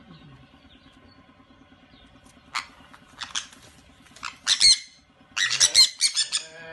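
Sun conures screeching: loud, harsh squawks in short bursts, starting about two and a half seconds in and coming thick and fast near the end, over a faint steady hum.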